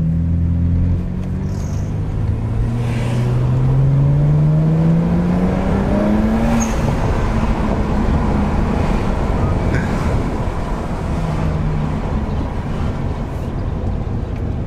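BMW 335i's N54 twin-turbo straight-six, heard from inside the cabin, accelerating: its note climbs steadily for about five seconds, then drops away about six and a half seconds in as the revs fall, and the car runs on at a steadier note.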